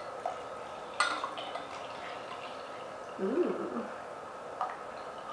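Water poured from a stainless steel bottle into a drinking glass, with one sharp clink about a second in.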